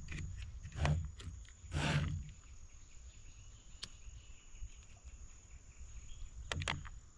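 Small clicks and rustles of hands handling fishing hooks and a plastic tackle box, loudest about two seconds in and again near the end, over a low wind rumble and a faint steady high insect buzz.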